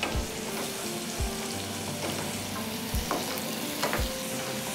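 Green coriander-and-coconut masala paste sizzling as it fries in oil in a small pan, stirred with a wooden spatula, with four dull knocks along the way.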